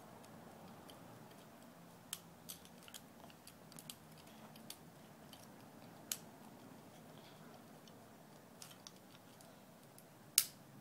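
Plastic clicks and snaps from a Bumblebee Transformers toy's joints and panels as they are twisted and folded by hand during transformation: about ten scattered clicks, the loudest near the end, over faint room tone.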